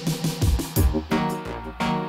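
Dub reggae instrumental: heavy bass line under drums. About half a second in, a few low notes fall in pitch.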